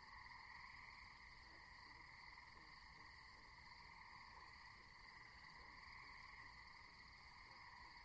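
Faint, steady night chorus of insects and frogs: an even high trilling that does not let up, with soft low calls underneath.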